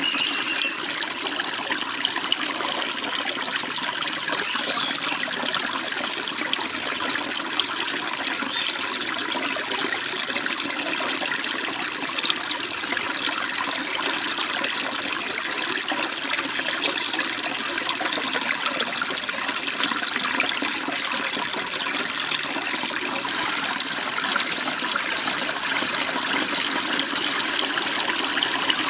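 Mountain stream babbling and splashing steadily, a dense even rush of flowing water.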